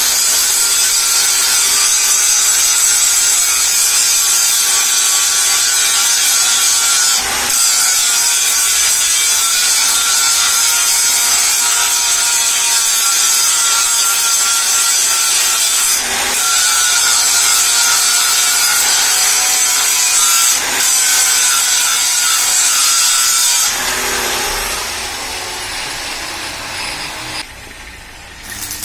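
Electric power tool running under load on a workpiece for about 24 seconds, a steady whine with a hiss, dipping briefly three times. It then comes off the work and the motor winds down over a few seconds.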